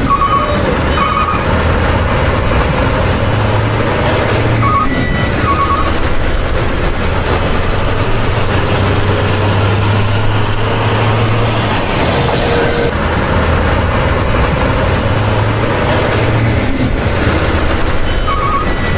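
Truck sound laid over toy footage: a diesel truck engine running steadily, with short pairs of beeps a few times.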